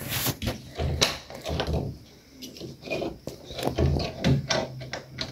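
Irregular light knocks, clicks and rubs of wooden furniture and a door being handled, with a door's lever handle worked near the end.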